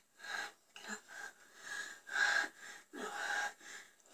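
Heavy, uneven breathing with gasps, coming in short bursts.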